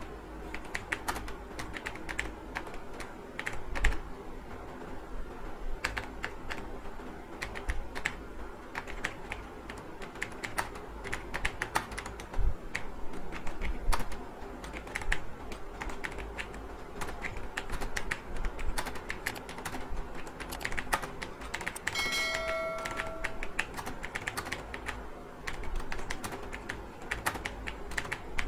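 Fast, continuous typing on a computer keyboard, with irregular key clicks. A short electronic beep sounds once, about three-quarters of the way through.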